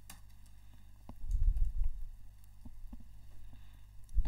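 Computer keyboard being typed on: a few soft, irregular key clicks with dull low thuds, one cluster about a second in and another near the end.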